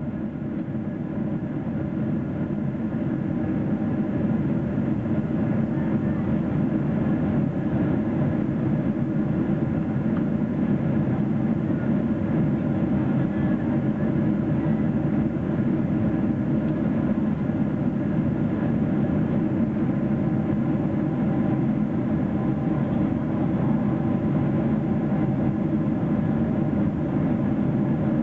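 Steady cabin noise of a Boeing 777-300ER in cruise: the low, even rumble of its GE90-115B engines and the airflow past the fuselage, heard inside the cabin. It fades in over the first few seconds, then holds level.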